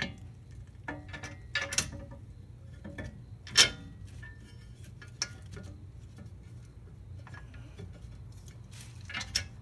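Sway-bar mounting hardware and tools clinking and clanking as they are handled: a few scattered sharp metal knocks with brief ringing, the loudest about three and a half seconds in, over a steady low hum.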